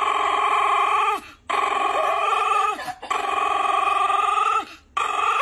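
Poodle howling: three long, steady howls of about a second and a half each, dropping in pitch as each ends, with a fourth beginning near the end.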